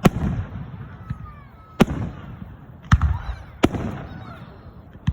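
Aerial fireworks bursting overhead: five sharp bangs, irregularly spaced about a second apart, each followed by a low rumbling echo.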